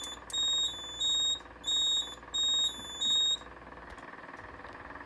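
Piezo sounder on a Notifier fire alarm control panel beeping as the system is reset: five short, high-pitched beeps about two-thirds of a second apart, over a faint steady hum.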